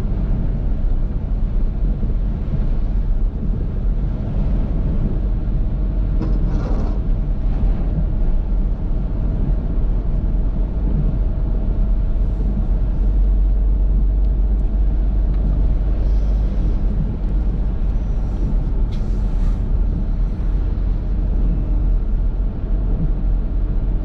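Steady low rumble of a car driving, heard from inside its cabin, with a few brief higher swishes scattered through.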